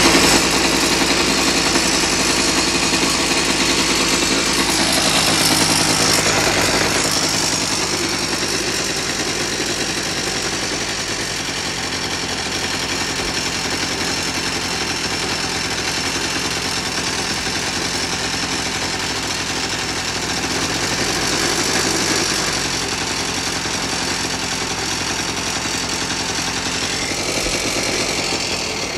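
Small air-cooled two-stroke engine of a 1984 Honda Aero 125 running steadily, picking up briefly about six seconds in and again a little after twenty seconds.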